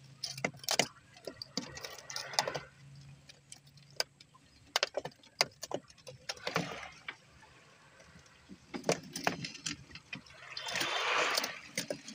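Scattered sharp knocks and rattles, with three louder swishing noises, the longest near the end.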